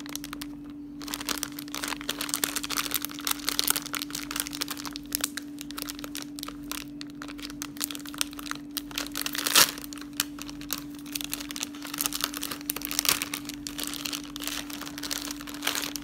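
Foil-lined plastic snack bag crinkling and rustling as it is torn open by hand, with one louder sharp crack a little after halfway. A steady low hum sits underneath.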